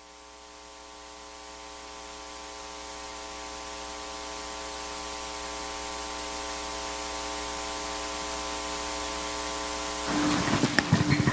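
Steady hiss with a faint electrical buzz of several even tones, growing slowly louder through the pause in speech. About ten seconds in the buzz stops and clicks and rustles begin.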